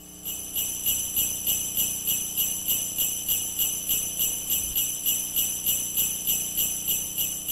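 Sleigh bells shaken in a steady rhythm, about three jingles a second, with a faint low steady hum underneath.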